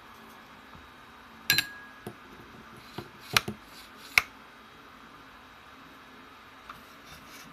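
A few sharp clicks and clinks of a 3D-printed carriage block being handled and moved on aluminium tube rails, five or so knocks in the first half, the first with a brief ring.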